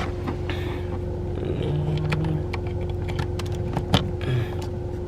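Steady low mechanical hum with a scattered run of light clicks and taps.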